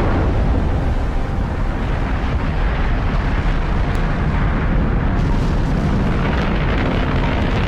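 Rocket lift-off roar from the N1's first-stage engines: a loud, steady, rumbling roar, heaviest in the low end.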